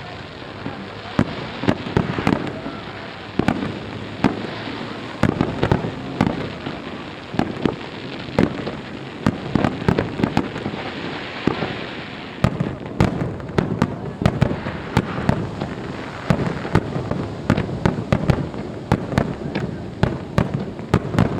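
Japanese aerial firework shells bursting over the sea in a rapid volley: dozens of sharp bangs in quick, irregular succession, with crackle between them.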